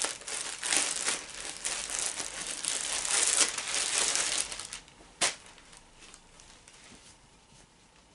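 Packaging crinkling and tearing as a T-shirt is unwrapped by hand, dense and continuous for about four and a half seconds, then stopping, with one sharp snap a little after five seconds in.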